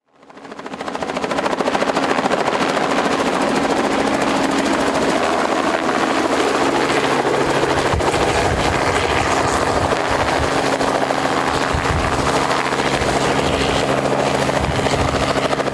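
Robinson R44 helicopter hovering low, its rotor and piston engine running steadily with a fast blade chop. The sound fades in over the first second or two, then holds steady.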